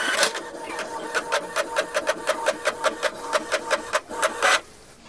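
Canon MG2440 Pixma inkjet printer running a test print: the print head carriage and paper feed clatter in a quick, even rhythm of about five clicks a second over a steady whirr, stopping about four and a half seconds in.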